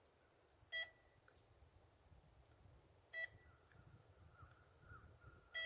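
Locator beeper of a crashed remote-control airplane stuck in a tree, sounding a short high beep three times, about two and a half seconds apart: the plane's tracking alarm signalling where it lies so its owner can find it.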